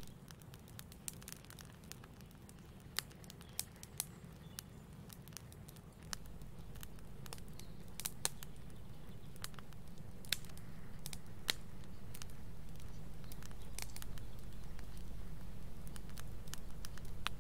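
Campfire of burning logs crackling, with irregular sharp pops over a low steady rumble that grows louder about six seconds in.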